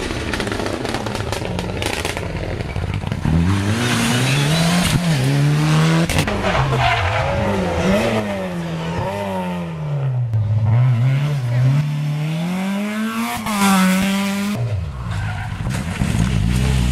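Rally cars driven hard through tight bends one after another, among them a Citroën Saxo and a Mitsubishi Lancer Evolution X. The engines rev up and down with gear changes, with tyre noise, and the sound changes abruptly several times from one car to the next.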